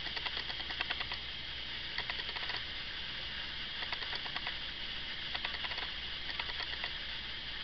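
Several short bursts of rapid light clicking, each under a second long, over a steady hiss.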